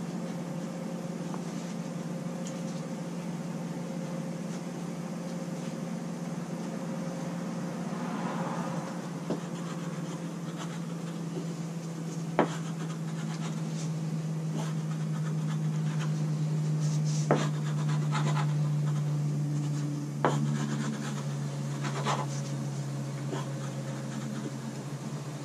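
Scraping and rubbing of acetone-and-alcohol-softened traction-mat adhesive off a jet ski's gel coat deck with a wooden scraper, with a few sharp clicks, over a steady low hum.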